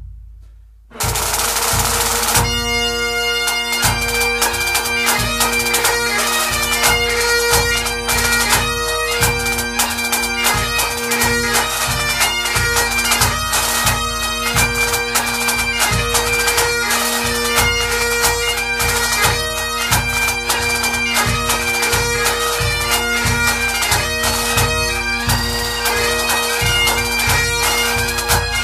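Pipe band music: Highland bagpipes playing a tune over their steady drones, with regular drum beats underneath. A drum roll dies away at the start, and the pipes strike in about two seconds in.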